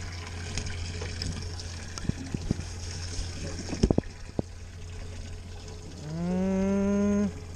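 Several knocks and taps as a small fish is handled on a plastic fish-measuring board, over a steady low hum and trickling water. About six seconds in, a person lets out a drawn-out hum-like vocal sound lasting over a second, rising at first and then holding its pitch.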